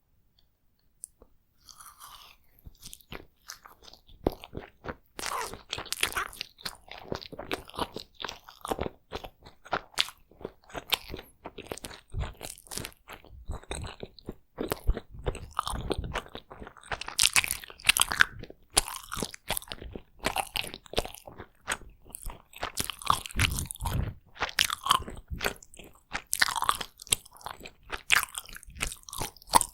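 Close-miked chewing of takoyaki, a dense run of sharp wet clicks and crunches that starts about two seconds in after a near-silent moment.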